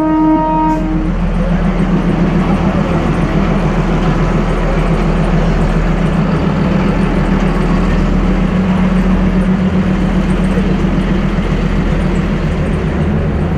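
A narrow-gauge diesel locomotive's horn ends about a second in. Then the locomotive's diesel engine runs steadily with a rapid flutter as the toy train pulls its coaches past.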